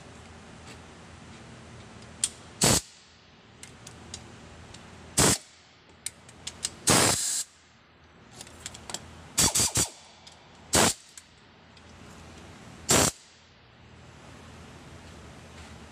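Pneumatic wrench run in short bursts of a few tenths of a second, about eight in all with a quick run of three near the middle, during final tightening of bolts.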